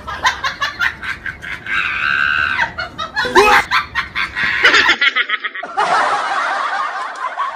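Bursts of dubbed laughter and snickering, of the kind laid over comedy skits, with a different sound clip cutting in abruptly about six seconds in.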